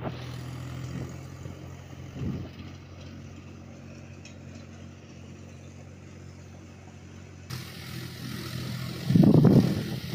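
Tractor diesel engine running steadily under load while it pulls a rotavator through dry soil, with a loud, short rushing noise near the end.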